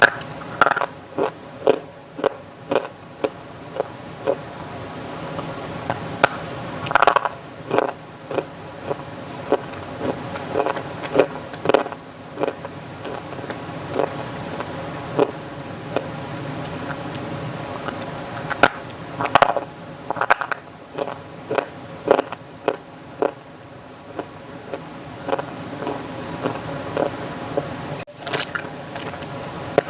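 Dried clay crunching in short, sharp, irregular bites and cracks, several a second at times. A steady background hum runs underneath, the disturbance picked up by the new microphone.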